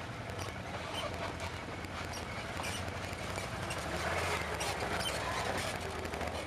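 Off-road quad and side-by-side engines running at low speed, a steady low hum, swelling as a Can-Am quad passes close by about four seconds in. Many small clicks and crackles throughout, from tyres over stones and twigs on the trail.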